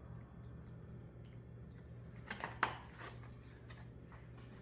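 Containers being handled while the shrimp cure is filled: a few sharp knocks and clicks about halfway through, over a steady low hum.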